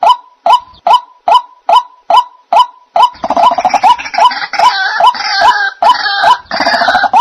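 White-breasted waterhen (dahuk) calling: a steady run of short, sharp notes, about two and a half a second. About three seconds in, a harsher, rougher croaking layer joins under the notes and carries on with them.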